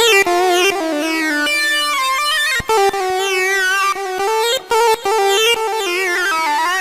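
A synthesized lead voice on a digital keyboard plays a single-line melody with pitch slides and wavering vibrato, without drums.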